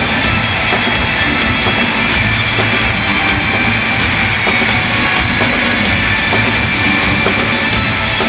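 Loud rock music played by a live band on drum kit and electric guitars.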